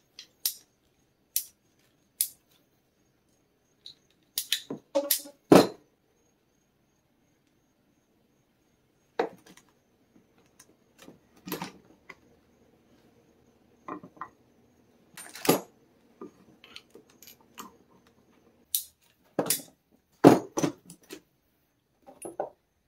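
Brass and copper plumbing fittings and metal hand tools clinking and knocking as they are handled, fitted together and set down on a workbench. The clinks come irregularly, with the loudest knocks about five seconds in and near the end.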